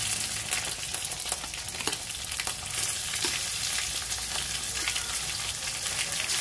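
Raw chicken pieces sizzling and crackling as they hit hot oil and browned onions in a wok.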